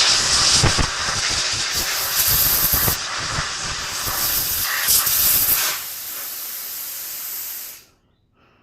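Compressed air hissing from an air hose nozzle, blowing dust and debris out of a camera's lens housing. It comes in uneven spurts, settles to a softer steady stream about six seconds in, and cuts off suddenly near the end.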